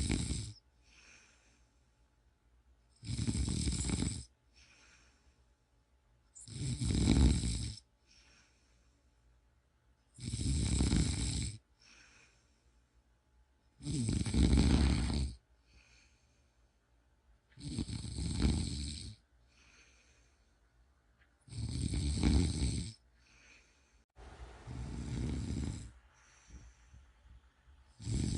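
A person snoring steadily: a loud snore about every three and a half to four seconds, each lasting about a second and a half, with a faint breath between snores. The snore about two-thirds of the way in is softer and breathier than the others.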